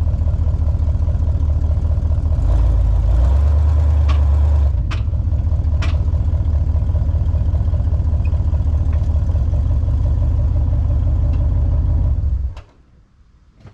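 1976 Cadillac DeVille's V8 engine idling steadily, with a few sharp clicks at uneven intervals, until the sound stops about twelve seconds in.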